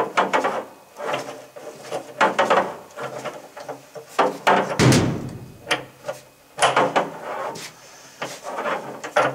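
Irregular metal knocks, clanks and scrapes of a socket and extension on the anode port of an electric water heater, as a new anode rod is worked down into the tank and twisted to catch its threads. The heaviest knock comes about five seconds in.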